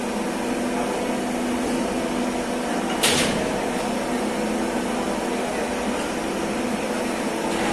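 Steady drone of running machinery, holding several fixed pitches, with one short sharp burst of noise about three seconds in.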